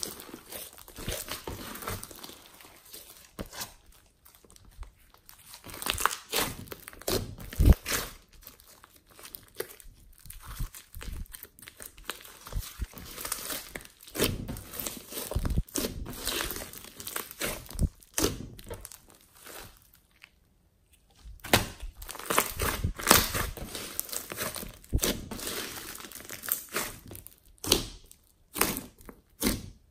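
Hands squeezing, stretching and pressing a large lump of glossy slime mixed with small beads, making wet, irregular crackling and clicking with a sharp pop about eight seconds in. The handling pauses briefly about twenty seconds in.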